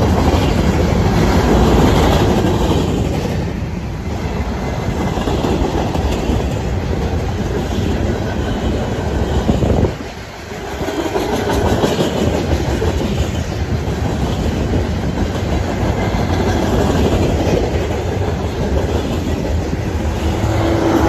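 Freight cars of a long train rolling past: a steady rumble with clickety-clack of steel wheels over the rail joints. Near the end the engine of the mid-train diesel locomotive comes up as a steady tone.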